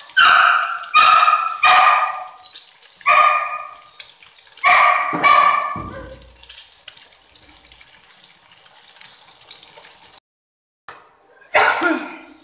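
A dog barking: six sharp barks in the first six seconds, then one more loud sound near the end.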